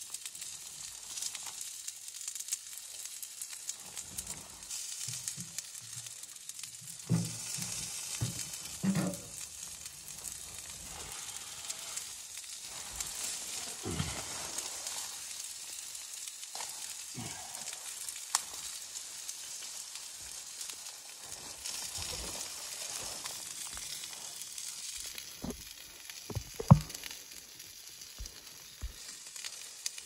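Small wood-burning tent stove with its door open, the fire hissing and crackling and food sizzling in a wire grill basket on top. Scattered knocks and rustling as firewood and a plastic bag are handled beside it, the loudest knock near the end.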